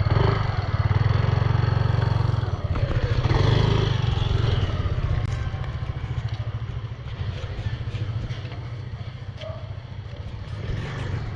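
Motor scooter engine running, loud at first and then gradually growing quieter over the second half.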